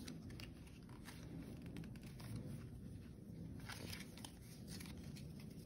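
Pokémon trading cards handled in the hands: faint rustling and small scattered clicks as the fanned cards are slid together into a stack.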